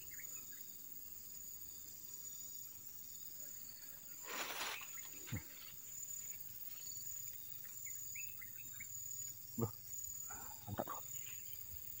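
Faint, steady high-pitched drone of insects, with a brief rustle about four seconds in and a few short ticks later on.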